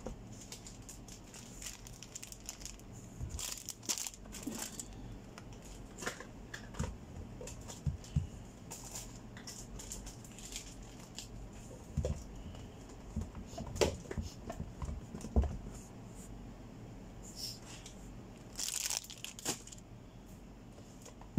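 Packaging crinkling and rustling, with irregular knocks and thumps as items are packed into a cardboard carton. There is a longer stretch of rustling near the end.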